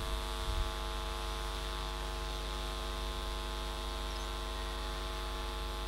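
Steady electrical hum with many overtones, unchanging in pitch and level. A low rumble dies away in the first half second.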